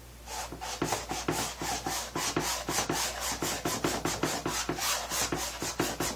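A paintbrush scrubbing burnt umber oil paint onto a stretched canvas, a run of quick back-and-forth scratchy strokes, about four a second, starting just after the beginning.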